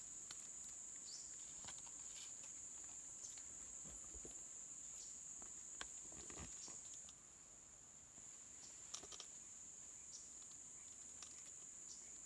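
Steady high-pitched insect chorus, faint, with scattered light clicks and rustles.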